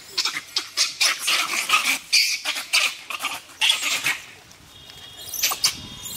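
Gray langurs fighting, giving a rapid run of short, sharp calls. The calls are dense for about four seconds, drop off briefly, then start again near the end.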